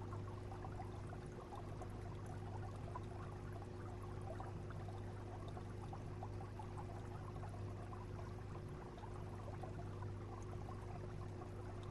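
Aquarium water trickling and bubbling steadily from the tank's circulation, over a constant low hum.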